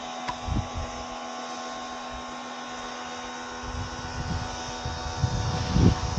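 Steady mechanical hum made of several fixed tones. Low thumps come in near the end.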